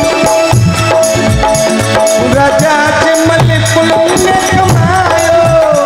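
Instrumental interlude of a Rajasthani devotional bhajan: a dholak keeps a rhythm under jingling hand cymbals, while a harmonium holds a steady note and a keyboard plays a melody with gliding notes.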